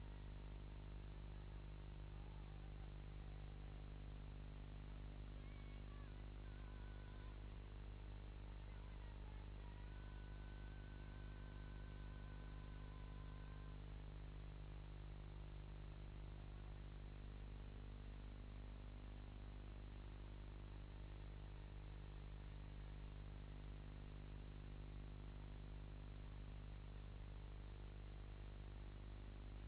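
Steady low electrical hum and hiss on an old film soundtrack with nothing else on it, and a faint wavering whistle for a few seconds near the middle. The helicopter seen flying is not heard.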